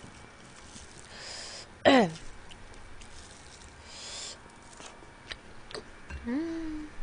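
Eating sounds from a close microphone: a woman's short, loud falling vocal sound, like a hoot, about two seconds in, and a rising then held hummed 'mm' near the end. Two brief hissy sounds and a few light clicks of chopsticks fall in between.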